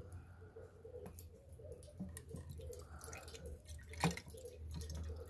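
Water poured in a thin stream from a plastic bottle into an empty aluminium canteen cup, starting about four seconds in, with small handling clicks before it.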